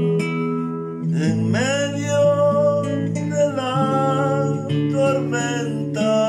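Acoustic guitar accompaniment with a man singing a long held note without words, sliding up into it about a second in.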